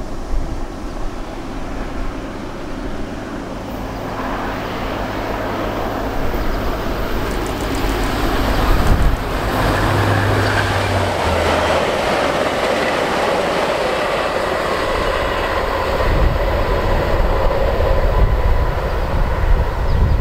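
VIA Rail passenger train led by an F40PH-2 diesel locomotive passing: the locomotive's low engine drone grows louder and drops in pitch as it goes by about ten seconds in. The rumble and wheel-on-rail noise of the passenger cars follows.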